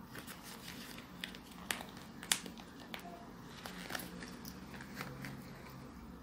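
Hands handling a crocheted yarn head while fitting 12 mm plastic safety eyes through its stitches: faint rustling of the yarn fabric with a handful of small sharp clicks.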